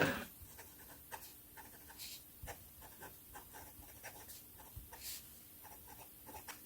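Faint, scattered small clicks and taps at an uneven pace, with a few short soft rustles over a low steady room hum.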